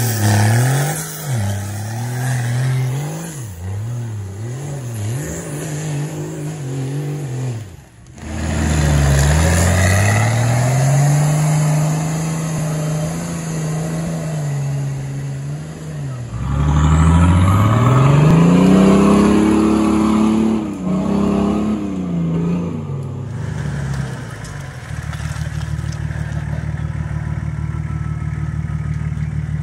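Off-road 4x4 engines revving up and down as they drive through mud. Quick throttle blips come first, then long climbs in revs that ease back down, and near the end a steady engine note.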